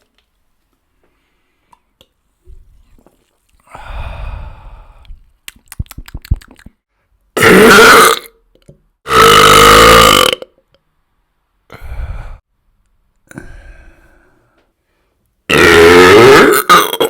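A person burping from the gas of a carbonated cola: half a dozen separate burps of varying length, the longest lasting about a second and a half, with the last and two middle ones the loudest. A quick run of sharp clicks comes between the first and second burps.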